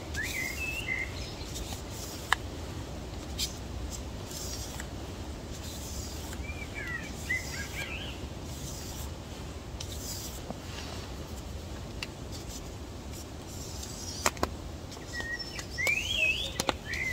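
Knife blade drawn in light strokes across sandpaper on a block, a soft rasp with each stroke, to hone the edge. Birds chirp in short bursts three times, and there are a few sharp clicks.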